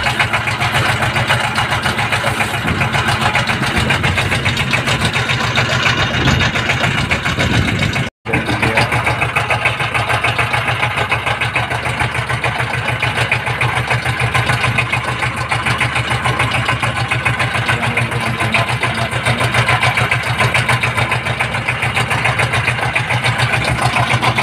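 A river trawler's diesel engine running steadily on board, with a fast, even chugging beat. The sound drops out for an instant about eight seconds in.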